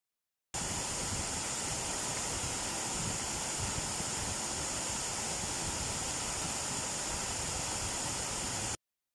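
Steady rushing of a waterfall, an even hiss that cuts in sharply about half a second in and cuts off near the end.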